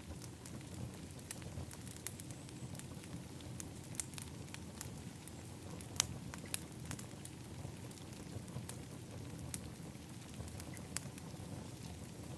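Wood fire in an outdoor fire pit crackling: irregular sharp pops and snaps over a steady low rumble, with the loudest pop about six seconds in.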